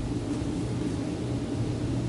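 A steady low hum and rumble of room noise in a quiet sanctuary.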